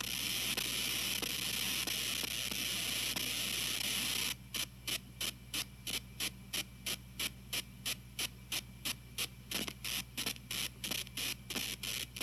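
Electrical hissing noise from a TG-TEK tablet's wired headphone audio output, a fault that shows up only with wired headphones plugged in while the tablet is downloading or multitasking. A steady hiss about four seconds in breaks into rapid pulses, about four a second, as it carries on after the download is cancelled.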